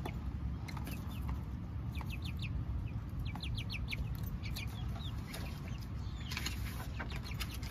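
Young hens clucking softly and giving short runs of quick high trills and chirps, over a steady low background rumble. Near the end a book page is turned with a brief paper rustle.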